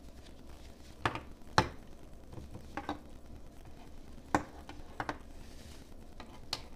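Hands handling a black plastic-and-fabric accessory: about six sharp clicks and taps scattered through, with light rustling between them.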